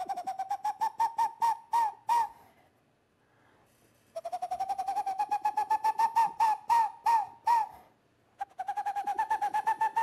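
A man imitating an owl's call with his mouth through cupped hands. It comes as three runs of quick, evenly repeated hoots at a steady pitch, each run lasting two to three and a half seconds, with short pauses between them.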